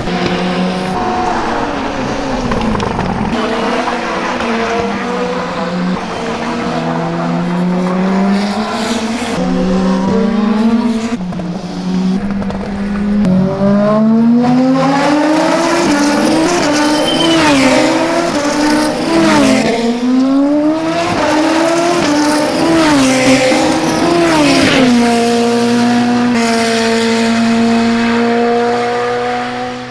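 Super Formula single-seater race cars' turbocharged four-cylinder engines at racing speed, revving up hard through quick upshifts, each rise cut off by a sudden drop, with falling pitch on downshifts in the first part. Near the end the engine note holds at a steady pitch.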